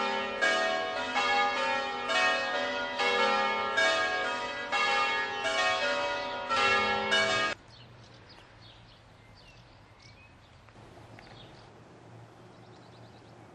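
Church bells ringing: a peal of several pitches, struck one after another about every two-thirds of a second. About seven and a half seconds in it cuts off suddenly, leaving faint outdoor background with a few high chirps.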